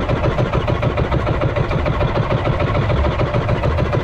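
Engine of a small outrigger fishing boat (bangka) running steadily at trolling speed, a rapid even putter.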